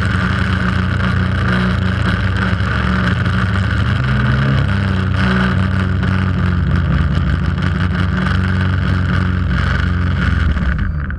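Quadcopter's electric motors and propellers running with a steady, loud buzzing drone, heard close up through the onboard GoPro's microphone as it flies low and descends. Near the end the sound drops suddenly as the motors throttle down on landing.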